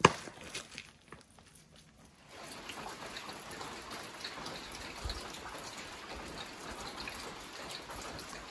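A single sharp smack right at the start, then from about two seconds in a steady patter of light rain with scattered drips.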